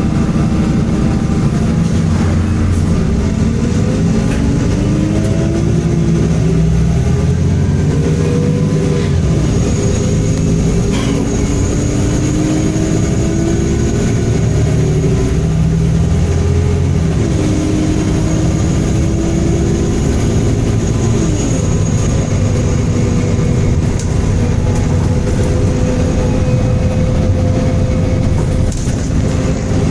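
MAN Enviro 300 bus's engine and drivetrain running under way, its pitch repeatedly rising over a few seconds and then dropping back as the bus pulls away and changes gear.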